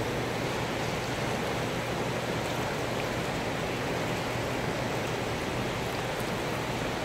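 Turbulent water rushing past the concrete piers of a weir, a steady even rush.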